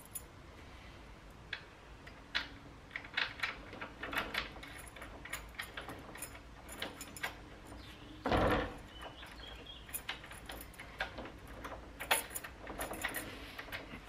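Light metallic clicks and taps, scattered and irregular, from hand work with a small tool at a small hatch and its brass fitting, with one louder thump about eight seconds in.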